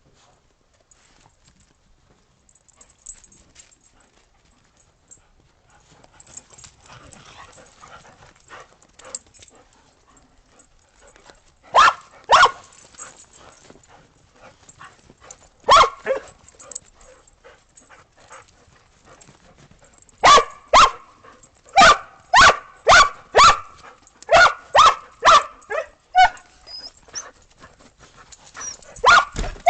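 Dogs at play, barking in short, sharp barks: a pair about twelve seconds in, one a few seconds later, then a quick run of about ten barks, and more near the end. Before the first barks it is quiet, with only faint rustling.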